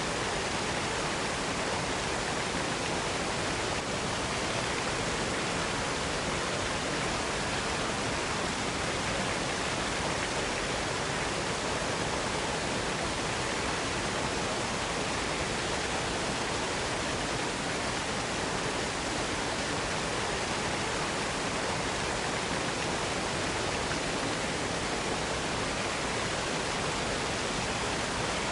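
Waterfall rushing in a steady, unbroken roar of falling water, even and unchanging throughout.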